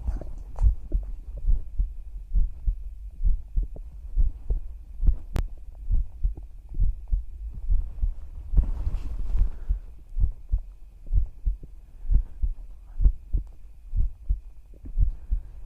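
A woman's heartbeat recorded close up through a microphone, beating steadily at about seventy beats a minute as soft low thumps, with a faint steady hum under it.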